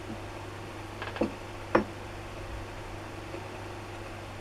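Two sharp wooden knocks, about half a second apart, the second louder, as a loose wooden upright is moved and set down on a plywood base, over a steady low hum.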